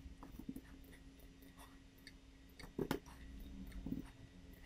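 Faint computer mouse clicks and keyboard taps, scattered and irregular, the loudest cluster a little under three seconds in, over a steady low hum.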